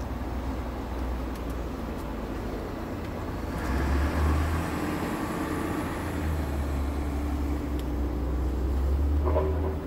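Truck diesel engine idling, a low steady rumble heard inside the cab, growing a little louder about three and a half seconds in.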